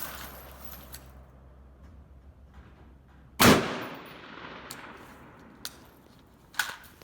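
A single rifle shot from a semi-automatic AR-15 type rifle in 5.56 mm about three and a half seconds in, its report trailing off; a few much fainter sharp clicks follow.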